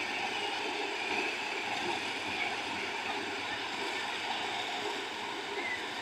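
FM World full-feed combine harvester running as it cuts and threshes standing wheat: a steady, even mechanical noise with no clear pitch.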